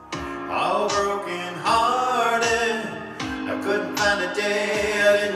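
A man singing a slow ballad, with sustained, sliding vocal lines over musical backing.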